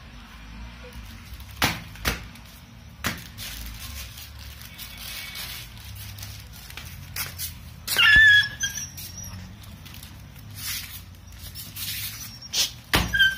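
Crackling and rustling of a foil-lined plastic packet stuck over a puppy's head as it struggles, in scattered sharp crinkles. About two-thirds through comes a louder burst of crinkling with a short high squeak.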